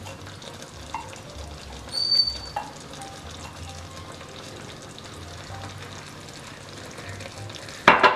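Chicken and masala sizzling steadily in ghee in a pan, with small taps and a brief squeak as a silicone spatula scrapes ground fried-onion paste out of a glass grinder jar. Near the end comes a sudden loud burst of sizzle and clatter as the paste and spatula go into the pan.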